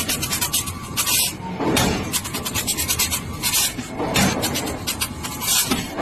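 Harsh rasping, scraping noise of metalwork on a train wheel, coming in uneven surges about once a second.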